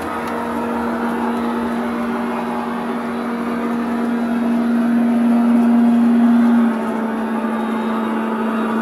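PIKO G-scale BR 118 model diesel locomotive's onboard sound unit playing a diesel engine running with a steady hum while the model stands still. The engine note builds up over a couple of seconds and then drops back abruptly about two thirds of the way through.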